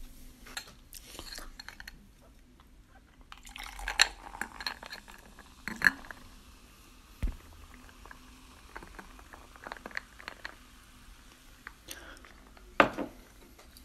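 Close-miked chewing and small clicks, then a sparkling fruit drink poured from a glass bottle into a glass. One sharp knock comes near the end.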